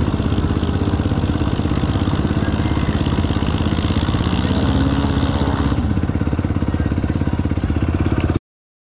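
Off-road vehicle engine running steadily, with a fast even pulse and a brief rise and fall in pitch about five seconds in; the sound cuts off suddenly near the end.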